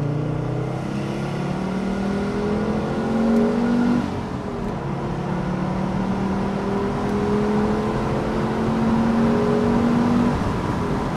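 Audi Cabriolet 2.3E's 2.3-litre inline five-cylinder engine pulling hard under acceleration, heard from inside the open-top car. The revs climb, drop at a gear change about four seconds in, then climb again before easing off near the end.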